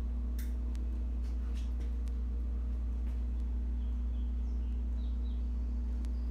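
Steady low hum of workshop room tone, with a few faint clicks and some faint high chirps.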